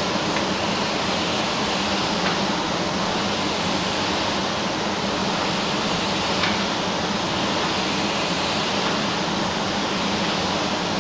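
Steady rushing hiss of paint-booth ventilation air mixed with a compressed-air spray gun spraying paint.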